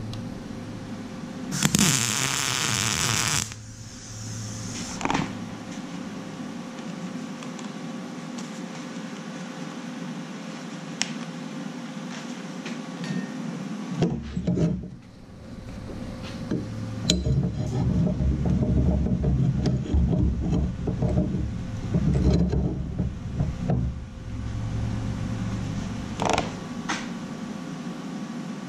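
MIG welder laying a short tack on a steel lever, a crackling buzz lasting under two seconds about two seconds in. The rest is handling noise: knocks and clatter as the steel piece is moved and re-clamped in a bench vise, over a faint steady hum.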